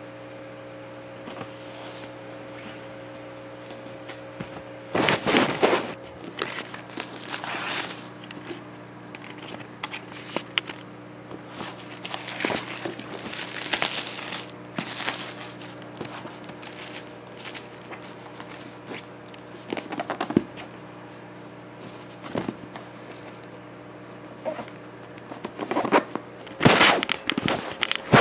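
Packaging of a boxed iPad being handled and opened: irregular rustling, crinkling and scraping, in clusters that are loudest about five seconds in and again near the end, over a steady low hum.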